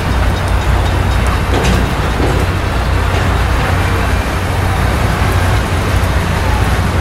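Canadian Pacific Holiday Train boxcars rolling past on the rails: a steady rumble of wheels and cars, with a few faint clicks about a second and a half in.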